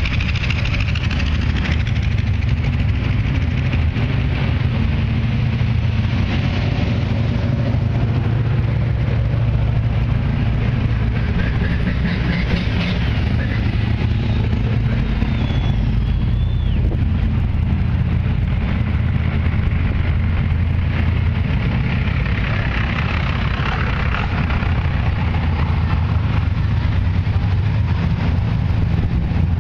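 Classic cars driving slowly past one after another, their engines' low exhaust note steady throughout.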